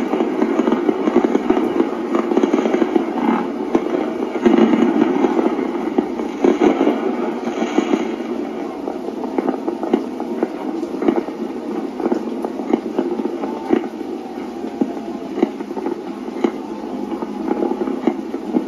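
Fireworks bursting and crackling, many overlapping bangs, busiest in the first half and thinning out toward the end.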